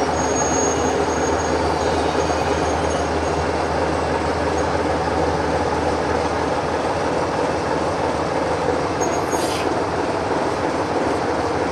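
FAUR LDH diesel-hydraulic shunting locomotive's diesel engine running steadily as it moves slowly with a train of hopper wagons, with faint high wheel squeals from the rails. The deepest part of the engine drone drops away about halfway through, and a short hiss comes near the end.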